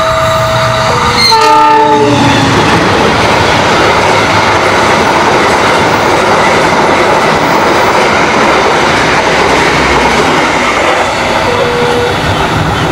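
Lodaya passenger train passing at speed: the diesel locomotive's two-note horn sounds and its pitch drops as the locomotive goes by about a second in. The carriages then rush and clatter past steadily.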